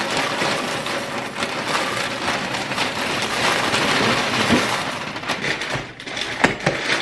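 Dry cereal poured into a clear plastic storage canister: a steady rattle of pieces hitting the plastic and each other, easing off about five seconds in. A few sharp clicks follow near the end as the lid is pressed down.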